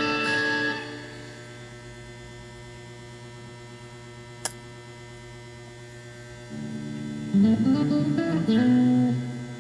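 Electric guitar played through a Rowin Harmonizer pitch-shifting pedal. A note rings out and stops about a second in, leaving a steady mains hum from the rig with a single click midway. From about two-thirds through, notes are played with string bends that glide up and down.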